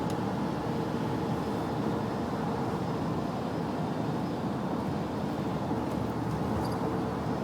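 Steady low rumble of a van running, heard from inside its cabin, with a faint steady hum.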